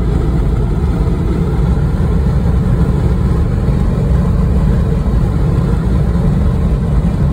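Steady road and engine noise inside a car's cabin at highway speed: a low rumble without breaks.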